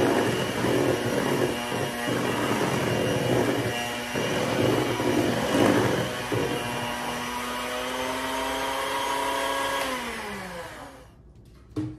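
Electric hand mixer beating buttercream frosting in a stainless steel bowl, its motor whining steadily with irregular knocks of the beaters against the bowl for the first six seconds or so. About ten seconds in, it is switched off and the whine drops in pitch and dies away.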